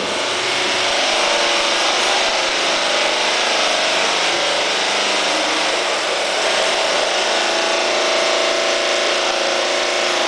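Otis high-speed panoramic glass elevator in travel: a steady rushing ride noise with a faint hum, coming on suddenly at the start and holding level.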